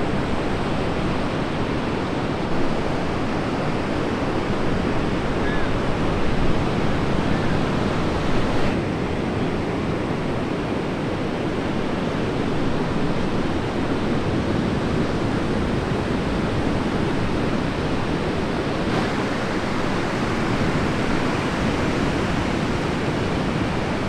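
Surf from a big hurricane swell breaking, a steady rushing wash of waves that shifts abruptly in tone a couple of times.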